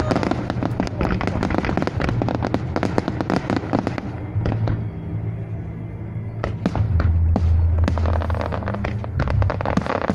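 Japanese aerial firework shells bursting in rapid, dense crackling volleys, thinning out for a couple of seconds midway before picking up again. Music with sustained low notes plays underneath.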